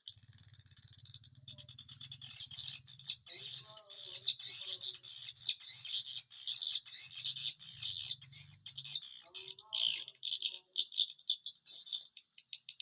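Edible-nest swiftlets' dense, rapid rattling twitter, the call that fills a swiftlet house at dusk. A few lower calls come in about four seconds in and again near the end, over a low hum that stops about nine seconds in.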